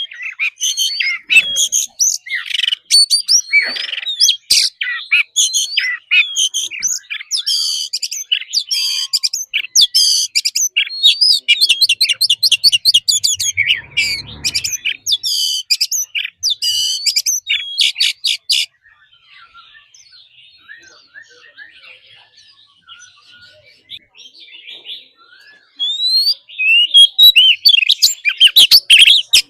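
Oriental magpie-robin singing a fast, varied song of clear whistles, trills and buzzy notes. The song breaks off about two-thirds of the way in, leaving only scattered faint notes, and starts again strongly near the end.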